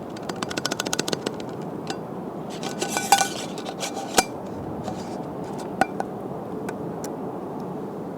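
A utensil clinking and scraping against aluminium camp cookware, likely the Snow Peak aluminium personal cooker set: a quick run of light, ringing clinks at the start, a denser cluster near the middle, then a few single sharp clicks, over a steady background noise.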